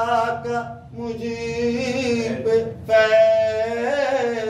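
A man sings a devotional verse unaccompanied, holding long, wavering notes, with two short breaks between phrases.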